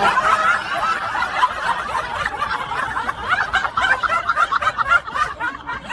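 High-pitched snickering laughter, a quick run of short giggling breaths that goes on throughout.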